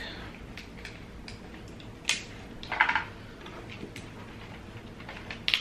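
Cooked lobster tail shell being pried and cracked apart by hand: scattered small clicks and cracks, with a louder crackle about two to three seconds in and a few sharp cracks near the end.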